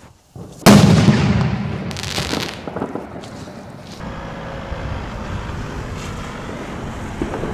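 Firecracker bangs: one very loud bang about half a second in, then a quick cluster of sharper cracks around two seconds in and a few weaker ones up to about four seconds, followed by steady background noise.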